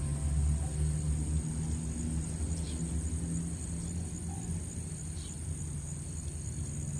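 Insects buzzing in a steady high-pitched chorus over a louder low rumble, with a few faint chirps.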